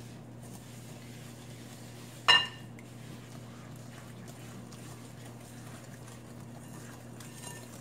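A single sharp clink of glass on glass about two seconds in, with a short ring, as a small glass bowl knocks against a glass mixing bowl while eggs are poured. A steady low hum runs underneath.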